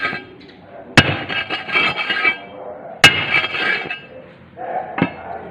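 Hand-operated steel paving-block mould being compacted: the round steel plate on top of the hexagonal mould is struck hard twice, about two seconds apart, each a sharp metallic clang that rings on. A lighter knock follows near the end.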